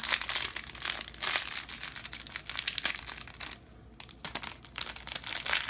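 Plastic packaging crinkling and rustling as it is handled, in irregular crackles, with a brief lull about three and a half seconds in.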